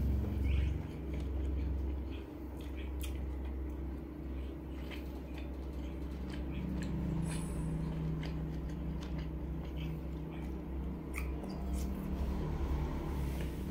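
Close-miked eating sounds: soft chewing with scattered short wet mouth clicks and smacks, over a steady low hum.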